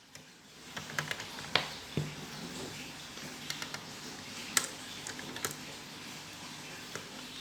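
Light, scattered plastic clicks and clacks from a toy marble run: a few sharp ones in the first two seconds and a couple more near the middle.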